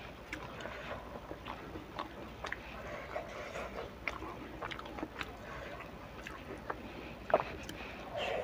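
Eating sounds of someone eating rice and tempeh sambal with her fingers: chewing with scattered wet mouth clicks and smacks, a sharper click about seven seconds in.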